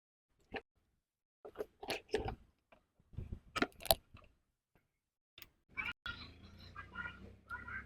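Handling noises: scattered clicks, knocks and crinkles, joined about six seconds in by a steady low hum under continued crackling.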